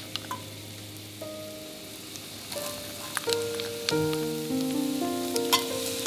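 Chopped vegetables (carrot, celery, red bell pepper) sizzling in hot olive oil in an enamelled pot, the sizzle growing louder about halfway through as more goes in, with light clicks of a wooden spoon scraping them from a glass bowl. Soft background music with held notes plays over it.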